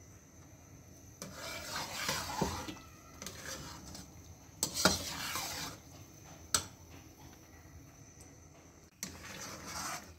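A metal slotted spatula stirs and scrapes through thick carrot-rice pudding (gajrela) in a non-stick wok. It goes in several separate strokes, with two sharp clicks of metal on the pan in the middle.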